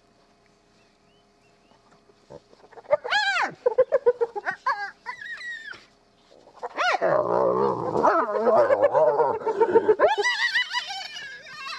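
Spotted hyenas at their den calling in a chaotic mix. After a couple of seconds of quiet come high squealing calls, then from about seven seconds a dense, loud tangle of growls and squeals, ending in high wavering calls.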